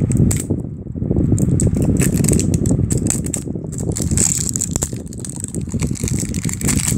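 Close handling noise of plastic toy packaging: hands crinkling and fumbling with an L.O.L. Surprise ball's wrapping right at the microphone, with irregular rustles and small clicks.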